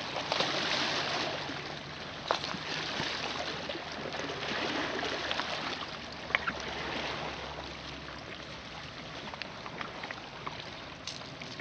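Small lake waves lapping on a rocky shore, a steady rush of water noise with a few faint clicks.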